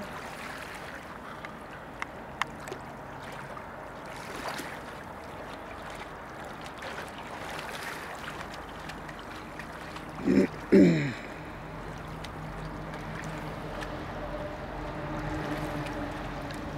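Steady wash of river water with light splashing from a swimmer's strokes. About ten seconds in come two short, loud, falling voice-like sounds, and after that a low steady hum joins in.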